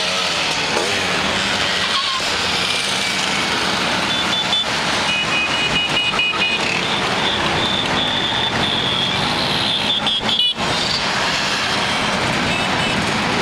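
A stream of scooters (Vespas, Lambrettas and Simson Schwalbes) riding past with engines running continuously. High-pitched horns beep repeatedly from about four seconds in: a quick run of about four toots a second, then a longer held note and a few more beeps.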